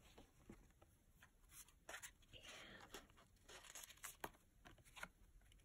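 Faint rustling and scraping of cardstock handled close up, with a few light clicks, as a brass paper fastener (brad) is pushed through a punched hole and worked with the fingers.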